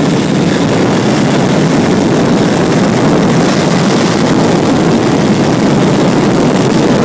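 Steady rush of wind and road noise at road speed, heard from a moving vehicle, with no distinct engine note standing out.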